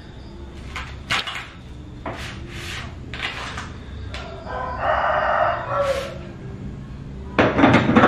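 A rooster crows once, a single long call about halfway through that falls in pitch at its end. Around it come short clicks and knocks of food and boxes being handled on a counter, with a louder clatter near the end.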